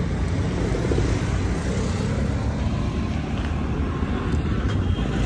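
Steady roadside traffic noise from vehicles passing on the road, with a heavy low rumble.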